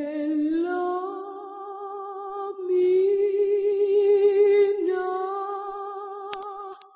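A woman singing unaccompanied, holding long wordless notes with a wide vibrato: three held notes, the first stepping up in pitch about a second in, and the voice breaking off just before the end.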